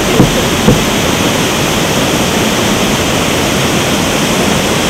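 Waterfall and rocky mountain stream: a steady, loud rush of falling and cascading water. Two brief low thumps sound within the first second.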